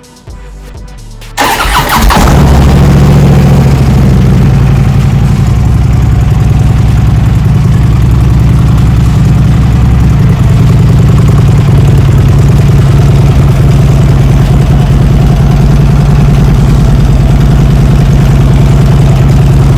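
Harley-Davidson V-twin engine cranked briefly on the starter, catching about a second and a half in and then idling loudly and steadily. This is its first start after a stator and voltage regulator replacement.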